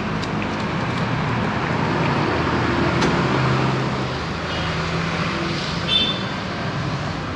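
Road traffic from a busy street: a steady wash of passing cars and motorbikes, with a brief high-pitched tone about six seconds in.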